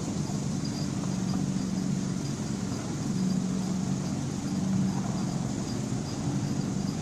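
A miniature railway train running along its track, with a steady low mechanical hum that swells slightly partway through.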